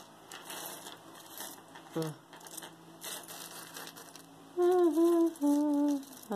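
Light clicks and rustles of small earrings being picked up and handled, followed near the end by two short, loud hummed notes from a woman's voice.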